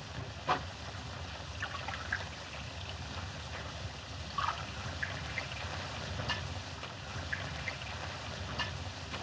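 Wine poured from a bottle into small glasses, with light clinks of glass on the bar counter, one sharper clink about half a second in and a few more scattered after it. Steady hiss and low hum of an old film soundtrack underneath.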